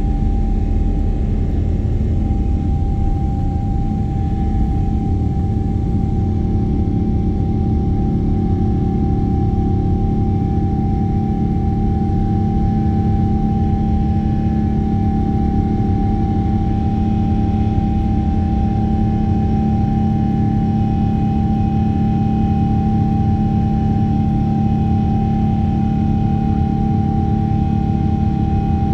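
Boeing 777 jet engine at takeoff thrust, heard inside the cabin beside the wing during the takeoff roll and climb-out. A loud, steady rumble is overlaid with one unbroken high whine from the engine.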